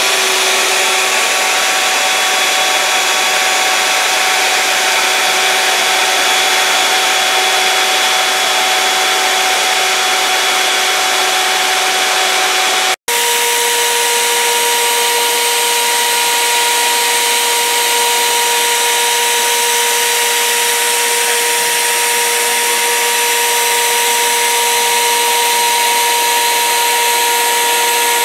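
Wood router on a CNC machine running steadily at high speed, its bit cutting a glued-up wood blank into a wheel pattern, with a steady whine over the cutting noise. The first part is a roughing pass with a worn bit. About halfway through it cuts suddenly to a different router, whose whine is lower-pitched.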